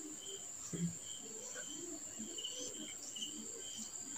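Crickets chirping in the background: short high chirps repeating about twice a second over a steady high-pitched trill. A soft knock sounds about a second in.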